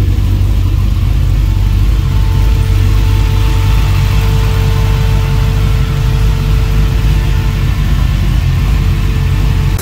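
Turbocharged 408 cubic-inch stroker V8 idling in a Chevy Colorado: a loud, deep, steady idle with a slightly uneven beat. A faint steady whine rides over it for several seconds from about two seconds in.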